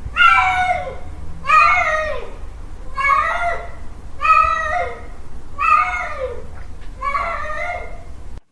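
Male cat yowling a mating call, six drawn-out calls about a second and a half apart, each rising and then falling in pitch.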